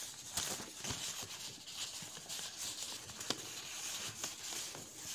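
A sheet of paper being folded and creased into a paper boat: irregular soft rustles and small sharp crackles.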